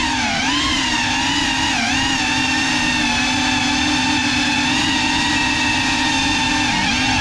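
A GEPRC CineLog35 cinewhoop drone's ducted propellers and brushless motors whining and buzzing in flight. The pitch wavers with the throttle, holds nearly level through the middle, then dips briefly near the end and climbs again.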